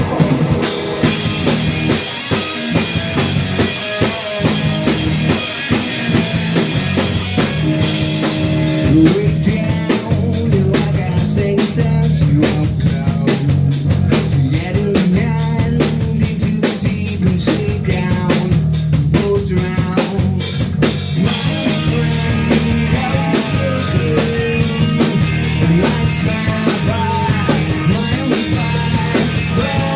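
Punk rock band playing live, with drum kit, guitar and bass; fast, dense drum hits come in about eight seconds in.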